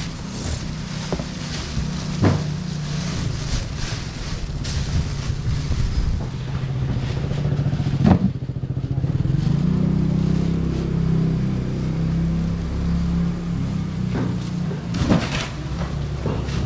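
An engine running with a steady low hum, with a few sharp knocks now and then.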